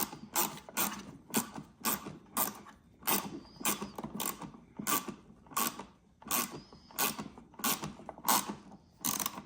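Small hand ratchet driving a screw into snowmobile plastic, its pawl clicking in short bursts about twice a second as the handle swings back and forth, with a brief pause about six seconds in.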